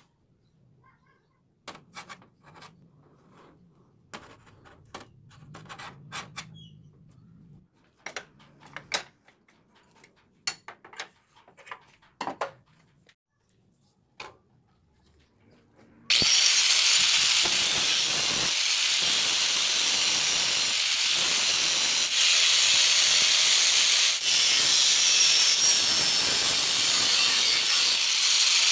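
Scattered light metallic clicks and taps as a steel ring is handled. Then, about halfway through, an angle grinder with an abrasive cut-off disc starts cutting the steel ring: a loud, steady, hissing grind with a few brief dips.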